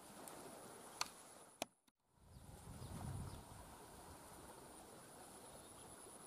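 Faint outdoor ambience with a thin, steady high insect drone, two light clicks about a second and a second and a half in, a brief drop to silence just before two seconds, then a soft low rumble.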